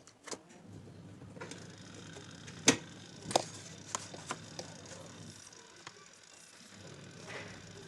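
Scattered light clicks and knocks of tools and metal or plastic parts being handled during a washing-machine spin-dryer repair, irregular, with the sharpest knock about two and a half seconds in.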